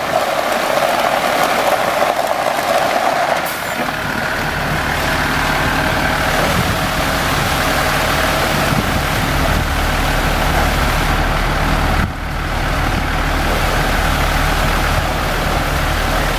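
Water pouring from a water truck's rear spray bar onto gravel, a steady hiss. About three and a half seconds in, the truck's Caterpillar 3126E diesel engine running steadily comes up under the splashing water and stays to the end.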